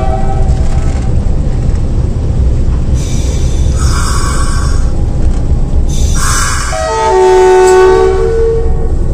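RGE-20 diesel locomotive heard from inside its cab, the engine running with a steady low rumble as it moves. Its multi-tone horn sounds twice: the end of a blast right at the start, then a louder blast lasting about two seconds, starting about seven seconds in.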